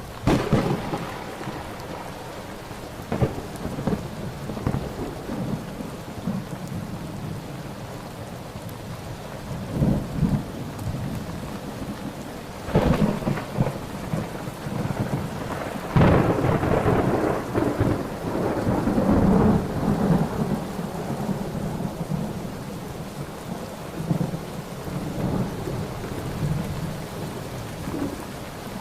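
Thunderstorm: steady rain with a sharp thunderclap right at the start, several more claps, and a long rumble of thunder a little past the middle.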